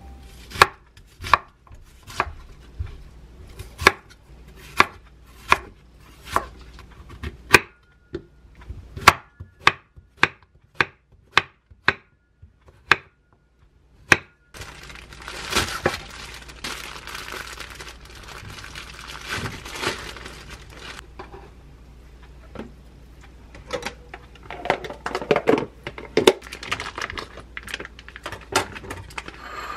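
Chef's knife chopping vegetables (onion and zucchini) on a wooden cutting board: regular sharp knocks, about two a second, for roughly the first half. After that comes rustling and light clatter as a plastic food package is handled and cut open with scissors.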